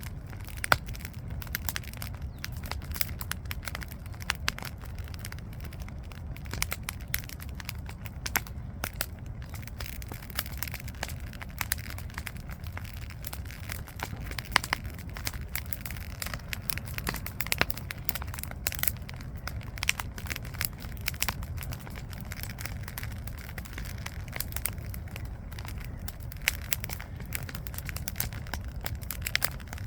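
Campfire wood burning, with dense irregular crackling and sharp pops over a steady low rumble; the loudest pops come about a second in and around the middle.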